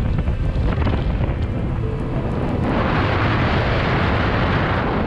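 A fishing boat running at speed, with a steady low rumble of the motor and wind noise. From about two and a half seconds in, a loud hissing rush of spray and wind takes over and fades near the end.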